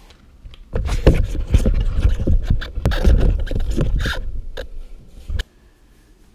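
Rubber gas mask being handled and pulled on right against the camera: loud rubbing and scraping handling noise with scattered clicks, which stops abruptly about five seconds in.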